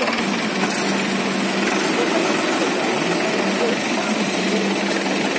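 Diesel tractor engines running steadily at low revs, with background voices.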